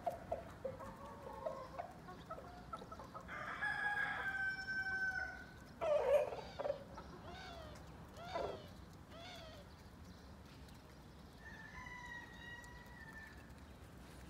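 A rooster crowing, one long held call of about two seconds, among hens clucking and giving short squawks. A second, fainter crow comes near the end.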